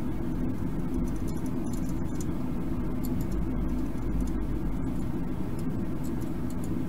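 A steady low hum and rumble, even in level throughout, with a few faint ticks above it.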